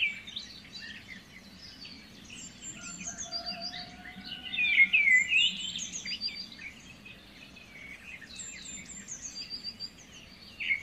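Birds chirping and singing, short whistles and trills overlapping, loudest around five seconds in.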